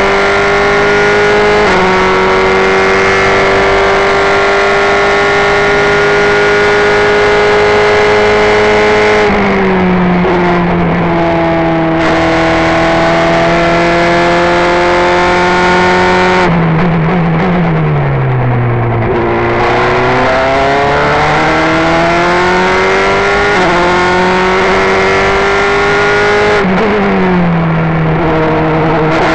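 Formula 3 car's four-cylinder racing engine at full throttle, heard from the onboard camera, its pitch climbing steadily with an upshift early on. Three times, about a third of the way in, around the middle and near the end, the revs drop sharply through a series of downshifts with throttle blips as the car brakes for a corner, then climb again as it accelerates out.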